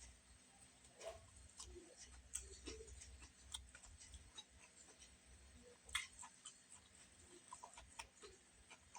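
Faint eating sounds: scattered small clicks and smacks of chewing and of food being handled, with one sharper click about six seconds in.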